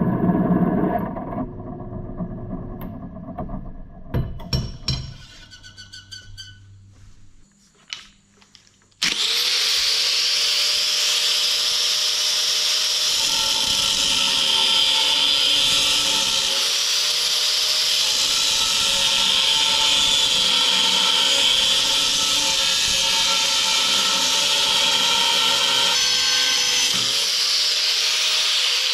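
A power tool working steel plate. After a few knocks and clatter, it starts suddenly about nine seconds in, runs loud and steady with a held tone and a strong hiss, then winds down with a falling pitch at the very end.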